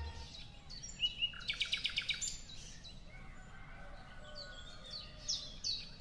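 Birds chirping: a quick run of short high chirps about a second in, and more scattered chirps near the end, over a faint low background hum.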